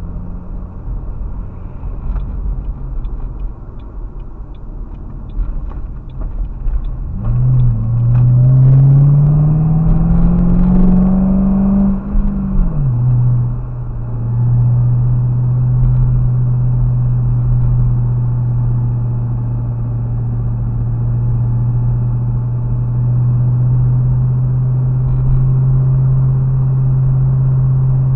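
Car engine and road rumble heard from inside the cabin. About seven seconds in, the engine note climbs steadily as the car accelerates. It falls back sharply after about five seconds and then holds a steady drone.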